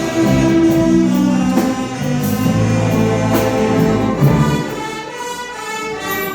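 Orchestra playing, with strong held low notes for about the first four and a half seconds, after which the music turns softer.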